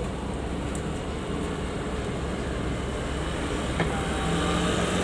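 Road traffic and a motor vehicle's engine running. Near the end a steady engine hum comes up and grows louder, and a single short click sounds just before it.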